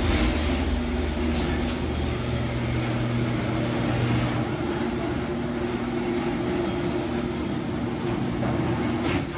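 Electric garage door opener raising a sectional garage door: a steady motor hum with rumbling rollers and track, cutting off suddenly near the end as the door reaches its stop.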